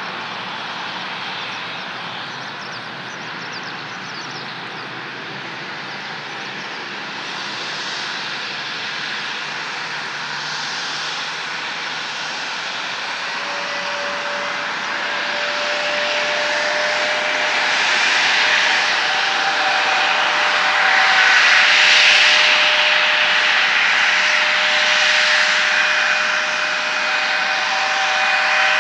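Turbofan engines of an Embraer regional jet running with a jet whine and hiss that grows louder. About halfway through, a whining tone appears and climbs slowly in pitch as an engine spools up.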